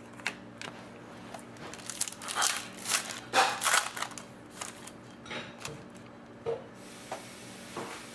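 Hockey trading cards and their plastic sleeves and wrappers being handled: a run of short crinkles and rustles, busiest about two to four seconds in, then a few scattered ones.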